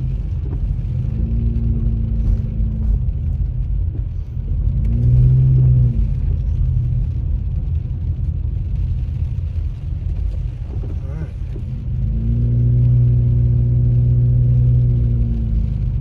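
Low engine and road rumble heard inside a moving car on a wet street. The engine's hum rises and falls three times as the car speeds up and eases off, loudest near the end.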